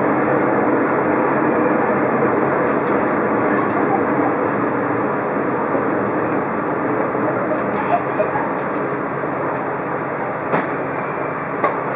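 Diesel railcar running along jointed single track, heard from the driver's cab: a steady engine drone and wheel rumble, with a few pairs of short clacks as the wheels cross rail joints.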